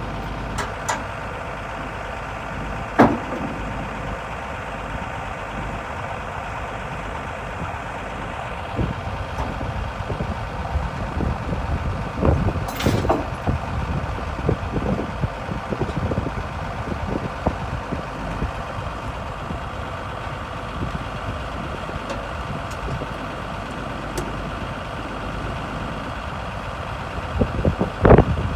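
Heavy diesel equipment engine running steadily, with a sharp knock about three seconds in and a run of irregular metal clanks and knocks through the middle.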